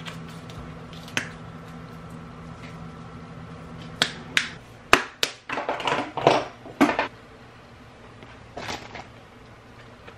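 Hands working at a kitchen counter: a few sharp clicks and taps about four seconds in, then a second or two of crinkling as a paper towel is pressed and handled, and a shorter rustle near the end. A faint steady hum stops a few seconds in.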